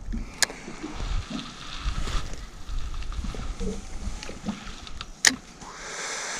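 Handling noise in a fishing boat: low rumble and soft knocks, with two sharp clicks, one near the start and one about five seconds in.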